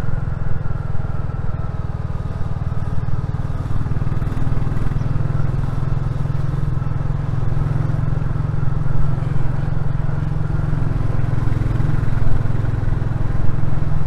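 Royal Enfield Classic 350's single-cylinder engine and exhaust running steadily as the motorcycle is ridden along at an even pace.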